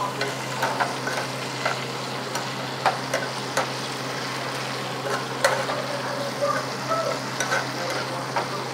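Shrimp frying in hot oil and butter in a pan, a steady sizzle, with occasional sharp clicks of metal tongs against the pan as the shrimp are turned.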